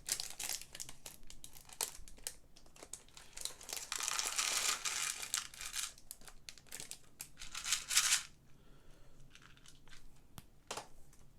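Plastic Lego parts bag crinkling and being torn open, with many quick clicks. It goes quieter after about eight seconds, leaving a few scattered clicks.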